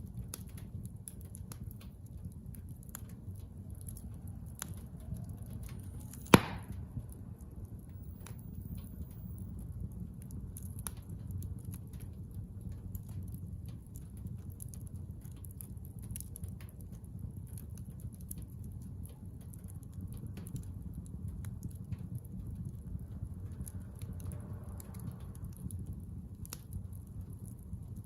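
Bonfire of scrap construction lumber crackling, with scattered snaps and pops over a low steady rumble, and one sharp, much louder pop about six seconds in.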